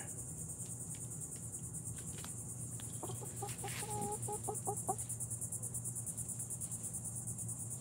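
A hen clucking in a short run of quick notes about three to four seconds in, over a steady, pulsing high chirring of insects.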